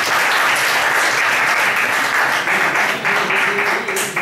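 A classroom of students applauding, with dense, steady clapping that thins slightly near the end.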